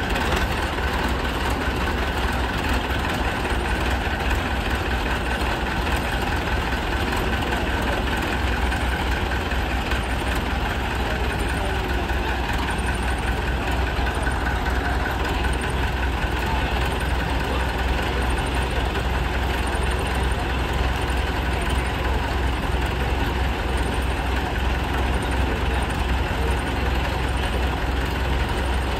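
Hindustan tractor engine idling steadily, a low even rumble that holds without change.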